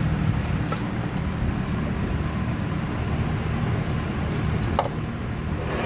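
Steady low rumble of background noise, with a few faint light clicks and a brief sharper sound about five seconds in.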